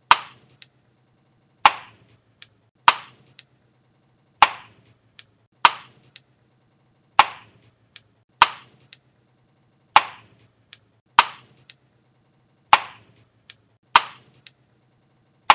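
Chewing gum smacking: a sharp click roughly every second and a half, each followed by a fainter click, about a dozen times in an even, repeating pattern.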